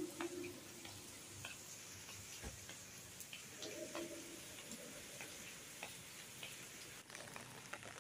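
Steady hiss of rain falling, with scattered drips and light ticks.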